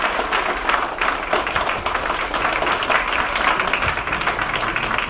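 Audience applauding: many hands clapping, steady and dense.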